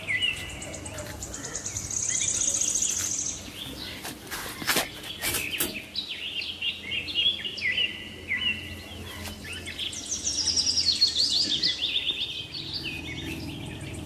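Small birds chirping in quick repeated series of short high notes, with a fast high trill about two seconds in and again around ten seconds in. A few sharp clicks sound between about four and six seconds in.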